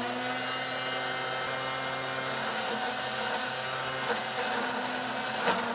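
Leaf shredder's motor coming up to full speed at the start, then running with a steady hum. From about halfway, irregular crackling as dry palm fronds are fed in and shredded.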